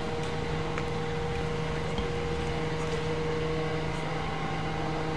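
A steady machine hum at an unchanging pitch.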